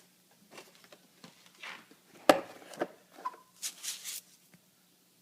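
Handling noises: scattered light taps and clicks with brief rustling, and one sharp knock about two seconds in.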